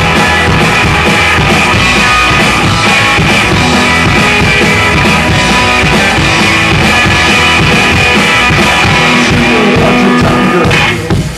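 A live rockabilly band plays loud: drum kit, upright bass and electric guitar together. Right at the end the music breaks off sharply for a moment.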